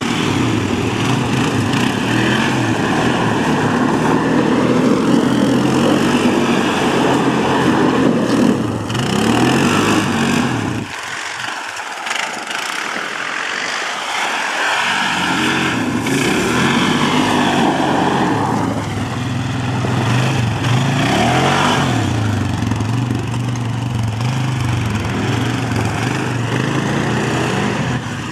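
Quad bike (ATV) engines running and revving up and down as the machines spin and slide, the engine note rising and falling continuously. The sound drops off for a few seconds around the middle, then comes back just as loud.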